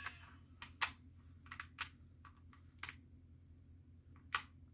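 Scattered light clicks and knocks of a hard plastic toy gel blaster being handled and turned over in the hands, about eight in all, with two sharper ones near the start and near the end.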